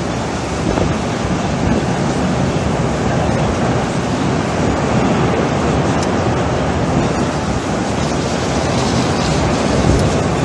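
Strong storm wind rushing across the microphone, a steady loud noise as the tornado passes.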